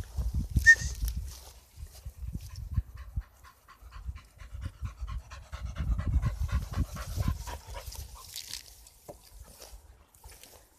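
Nova Scotia Duck Toller Retriever panting quickly, about five breaths a second, out of breath from chasing the ball. Bursts of low rumble, loudest near the start, lie under the panting.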